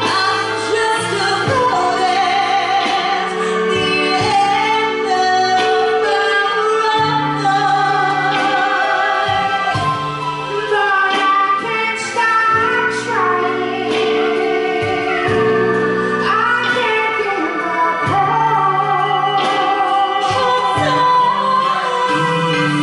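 Live band playing a Motown-style song, with a woman's voice singing long held notes that waver and slide in pitch, and drum hits keeping the beat.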